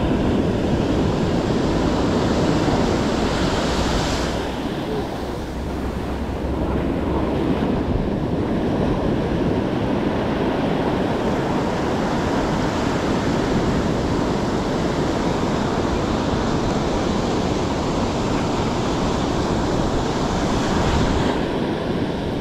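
Ocean surf breaking and washing on the shore in a steady hiss, with wind rumbling on the microphone. A wave breaks louder about four seconds in and again near the end.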